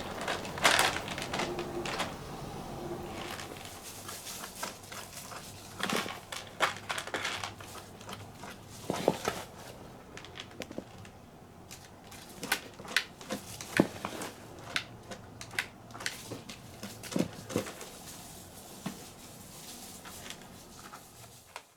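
Scattered light clicks and knocks, with a few short kitten mews.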